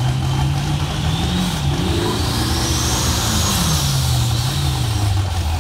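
Cadillac CTS-V coupe's supercharged V8 idling at the drag-strip start line, revved up briefly twice and settling back to idle. A high whine rises and falls along with the second rev.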